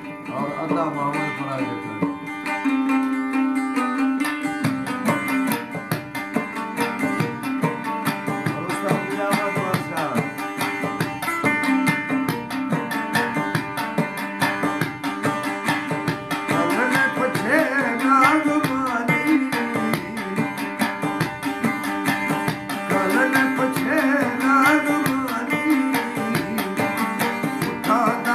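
Balochi folk music: long-necked lutes strummed in a steady, driving rhythm, with a man singing over them at times.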